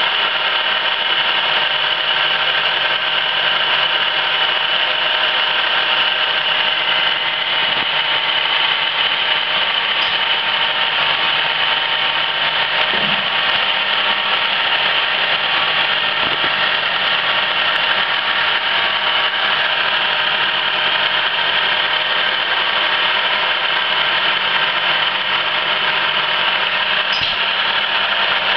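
1974 Emi-Mec E Sprint plugboard automatic lathe running steadily, cutting small turned parts from bar stock under flood coolant. A constant mechanical running noise with a high whine on top, and a few faint knocks.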